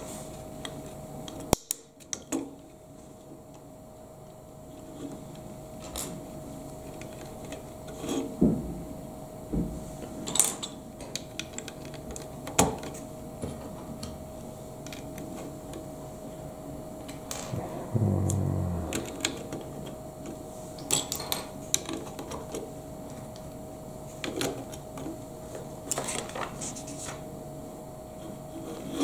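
Lego bricks being handled and pressed onto a model on a wooden tabletop: scattered, irregular plastic clicks and taps, over a faint steady hum.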